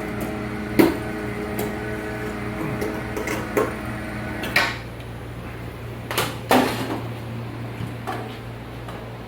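Winch motor running with a steady whine as it hoists a CNC router on paracord lines over pulleys, stopping about halfway through. Several sharp knocks and clanks come before and after it stops.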